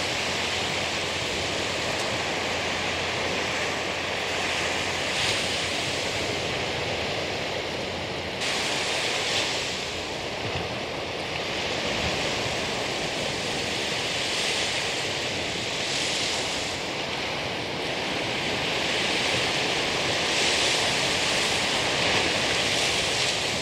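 Small ocean surf breaking and washing up a sandy beach: a steady hiss that swells every few seconds as each wave comes in.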